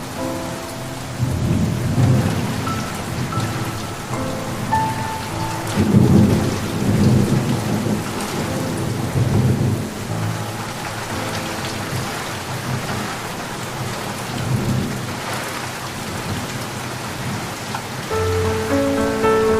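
Steady rain falling, with rolling thunder that rumbles low and long about a second in and again from about six to ten seconds in, then fades to a softer grumble.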